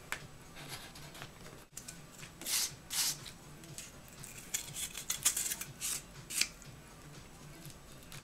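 Short scraping and rubbing sounds of small board pieces being handled and pressed onto a cardboard sheet, in a few brief clusters, over a faint low hum.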